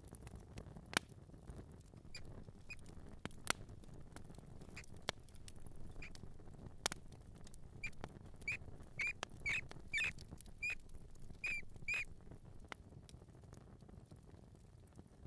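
Mouse squeaking in short, high squeaks, most of them bunched together in the second half, with scattered small clicks and scratches in between.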